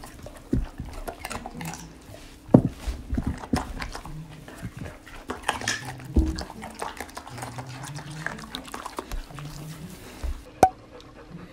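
A German shepherd and a Siberian husky eating small carrot pieces off plates: irregular chewing and crunching, with sharp clicks of teeth and muzzles against the plates.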